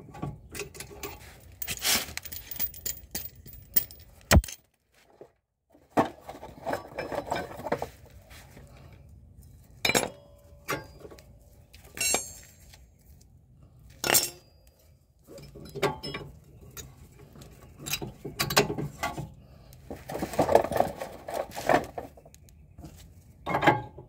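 Irregular metallic clicks, knocks and clatter of hand tools and brake parts being handled at a BMW 325i's front brake disc and caliper bracket during a brake pad change.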